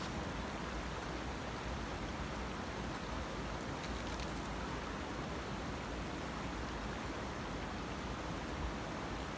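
Steady rush of a small, fast mountain brook running over rocks and riffles.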